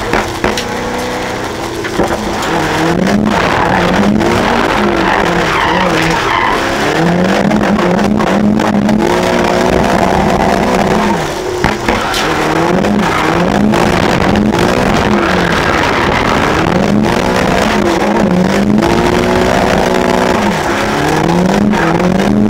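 Drift car's engine heard from inside the cabin, revving hard with its pitch climbing and dropping again and again through the corners, with tyres squealing as the car slides.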